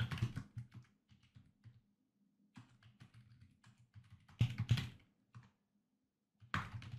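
Computer keyboard keystrokes: a command being typed in irregular runs of key clicks, with louder clusters of keystrokes a little past four seconds and again near the end.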